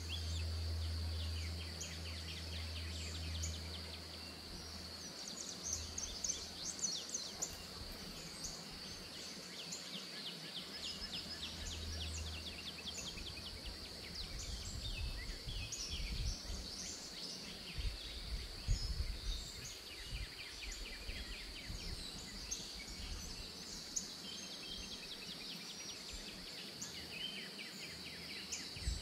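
Songbirds chirping and trilling, over a steady high-pitched buzz, with low rumbling gusts of wind on the microphone now and then.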